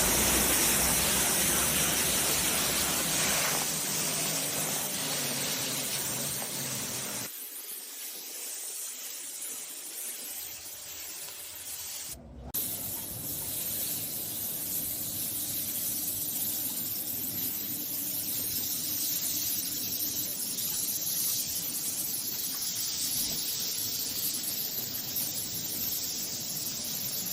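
Pressure washer spraying water, a steady hiss that changes abruptly about seven seconds in and again about twelve seconds in.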